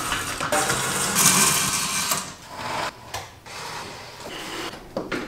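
Window shades being raised by hand, their pull cord and lift mechanism rattling and whirring for about two seconds, then quieter handling.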